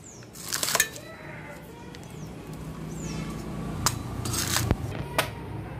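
Curved sickle-like blade chopping and shaving the husk of a green coconut: several sharp chops at irregular intervals, a few about half a second in and a quicker run of them near the end.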